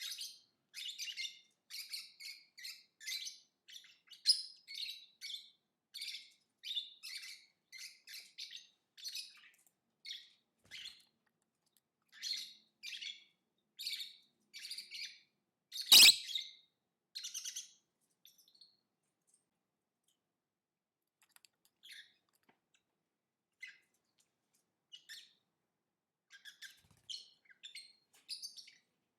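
Lovebird chirping in quick high-pitched runs, dense for the first half and then sparse with long gaps. About sixteen seconds in a single sharp click, the loudest sound.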